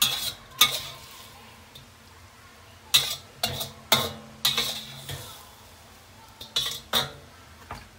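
A spatula scraping and knocking against a wok as the finished stir-fry is scooped out. It comes as a series of short scrapes, mostly in pairs a few seconds apart.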